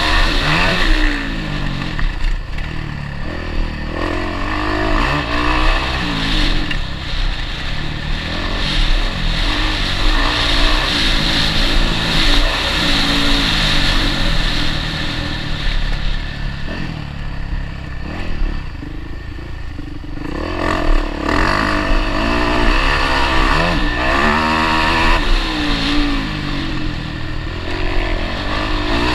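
Motocross bike engine heard from onboard, revving up and dropping back again and again as the rider works the throttle and gears over a rough dirt track. It eases off for a few seconds about two-thirds of the way through, then opens up again.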